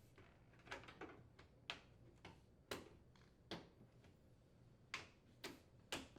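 Faint, irregular clicks and taps, about ten of them, from a metal dishwasher outer door panel being handled as it is aligned on the inner panel and slid up into place.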